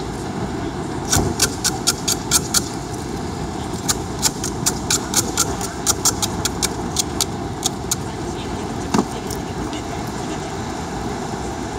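Aerosol spray paint can being shaken, its mixing ball rattling in quick clicks about four or five a second: a short run about a second in, then a longer run from about four to nearly eight seconds in. Steady street traffic noise runs underneath, with a single knock near nine seconds.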